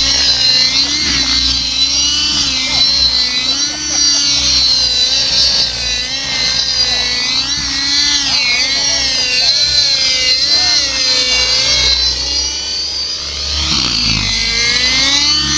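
Compass Knight RC helicopter flying aerobatic manoeuvres, its high-pitched motor and rotor whine rising and falling in pitch over and over as it is thrown about.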